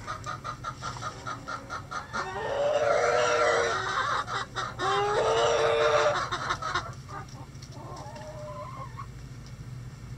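Bantam chickens clucking in quick succession, then a rooster crowing twice, each crow about a second and a half long, with a fainter call about eight seconds in.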